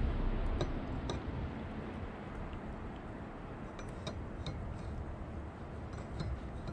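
A spoon stirring coffee in a mug, clinking lightly against its sides at irregular intervals, over a low steady background rumble.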